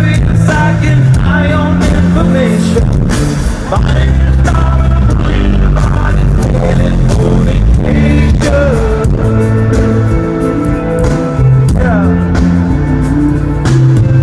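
Rock band playing live, heard loud from the crowd: electric guitar, bass and drums, with some singing, in a poor-quality recording.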